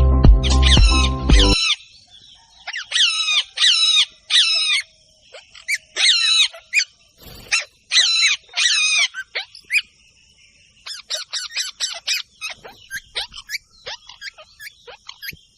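Background music for about the first second and a half, then a parrot's harsh, warbling squawks in runs of two to four. Near the end come quicker, shorter chirps.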